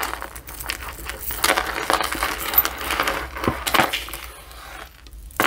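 Costume jewelry chains and beads clicking and clinking as a tangled necklace is worked loose by hand, with crinkling of the plastic bag it came in; the irregular small clicks thin out near the end.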